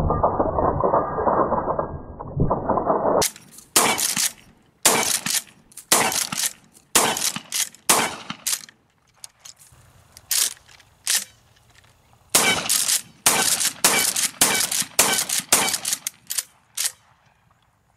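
Remington 870 pump-action shotgun fired in a rapid string of shots, the pump slide worked between them so that the sharp reports come in quick pairs. There is a short pause in the middle, and the firing stops near the end.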